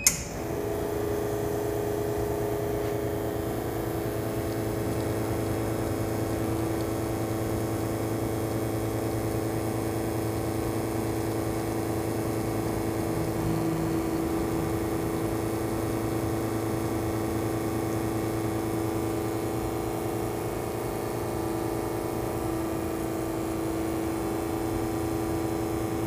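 Espresso machine's pump running with a steady hum through a shot extraction, started with a click of the brew button. The hum holds one even pitch throughout.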